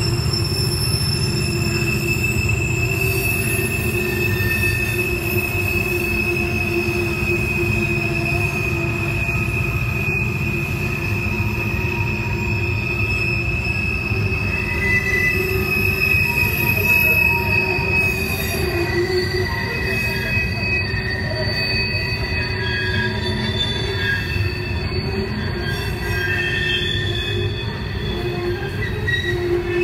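Wheels of empty coal hopper cars squealing as they roll through a sharp curve, several held high-pitched squeal tones that come and go over a steady low rumble of wheels on rail. The squeal is flange squeal from the tight radius of the curve.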